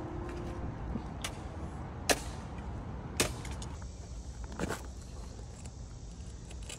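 A few sharp knocks or clicks at irregular spacing, roughly one a second, over a low steady rumble.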